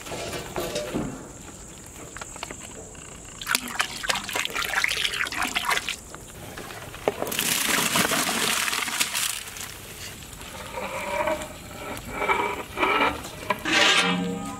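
Rice being tipped into a large pot of boiling water, in two long rushing, splashing pours. Near the end come a few short pitched cries.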